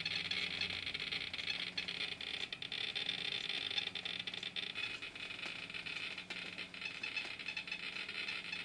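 NE Technology rate meter's loudspeaker clicking rapidly and irregularly, about fifty counts a second. The clicks are radiation picked up by a DIY plastic scintillator probe from a thorium-bearing tungsten welding rod, about 5 to 6 times background.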